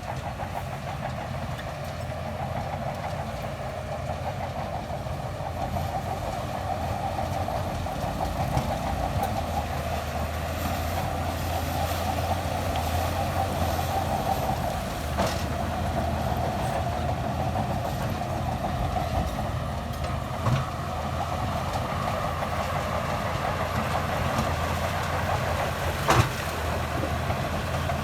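Heavy diesel earthmoving machinery running steadily, with a few sharp knocks late on.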